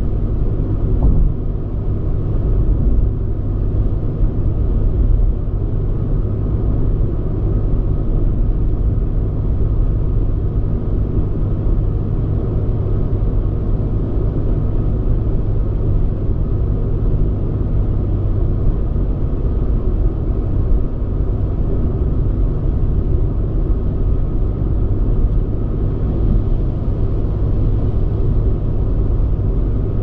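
Car driving steadily on a motorway, heard from inside the car: a steady low rumble of tyre and engine noise.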